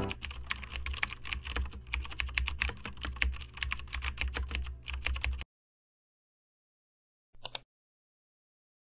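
Computer keyboard typing: rapid, uneven key clicks over a low hum that stop suddenly about five and a half seconds in. A brief double click follows near the end.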